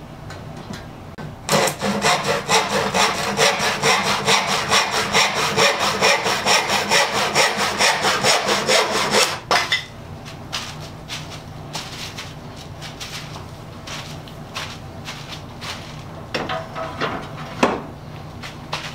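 Hand saw cutting through a wooden board, about three even back-and-forth strokes a second, for roughly eight seconds until the cut finishes and the sawing stops abruptly. Then light knocks and clicks from the board being handled, with one sharper knock near the end.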